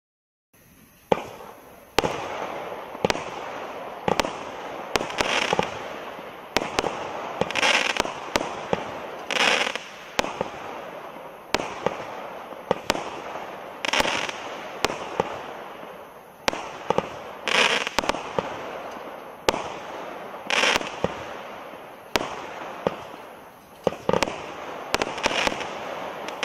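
A 25-shot consumer firework cake with 20 mm tubes (Evolution Fireworks 'Atomic') firing after a half-second of silence. Sharp reports come roughly once a second, over a continuous hiss and crackle from the multi-coloured peony, palm and crackle breaks.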